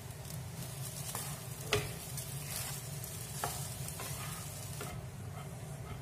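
Chicken fried rice being stirred and tossed in a nonstick frying pan: a steady sizzle with a few light knocks against the pan, the sharpest about a second and a half in.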